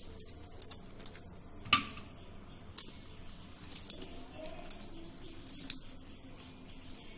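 Metal hinged hand-held lemon squeezer pressing lemon halves: several sharp metallic clicks and clacks as the handles are worked, the loudest about two seconds in.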